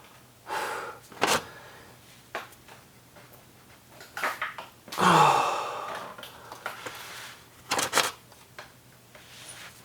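A wrench clicking and clanking against a stuck oil drain plug that will not break loose, with a few separate sharp metallic knocks. A strained grunt and a heavy breath of effort come about five seconds in.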